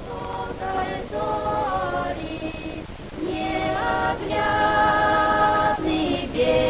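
Choir singing slow, long-held notes on the film's soundtrack, growing louder about three seconds in.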